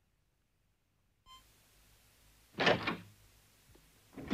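Silence at first, then two short thumps about a second and a half apart, the second near the end.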